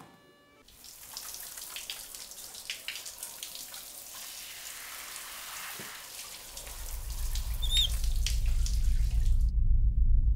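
Shower spray hissing and splashing on skin, cutting off suddenly near the end. From about two-thirds of the way in, a deep pulsing rumble swells up and becomes the loudest sound.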